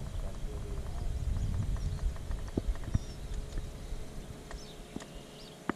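Handling noise from a rod and reel held in a small boat: a low rumble with a handful of sharp, separate clicks and knocks.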